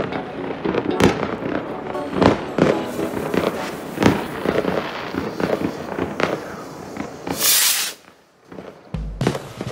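Fireworks rockets going off, a dense irregular run of bangs and crackles, with a short loud hiss about seven and a half seconds in. Near the end the bangs stop, there is a moment of near silence, and music begins.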